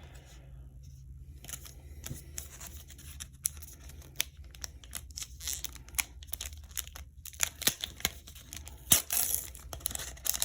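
Foil wrapper of a Pokémon trading card booster pack crinkling as it is handled and torn open, a run of crackles that gets denser and louder near the end.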